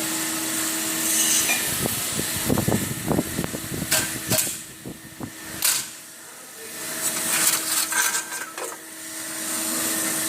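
A steady mechanical hum with a held tone, which drops out briefly twice and comes back, over a series of sharp metallic clicks and knocks as the band saw blade is handled.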